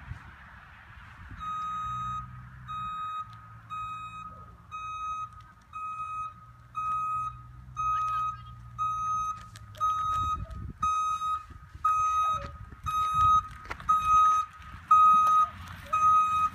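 Reversing alarm of a 2011 Vantage GreenVan low-speed electric passenger van beeping as the van backs up, about two beeps a second. The beeps grow louder as the van comes closer.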